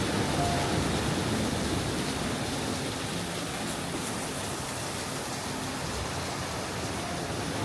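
Steady rush of a waterfall, a continuous even hiss of falling water.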